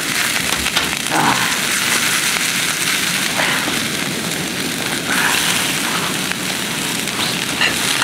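Chopped carrot and capsicum sizzling in hot oil in a pan on a portable gas-canister stove, a steady hiss with faint pops.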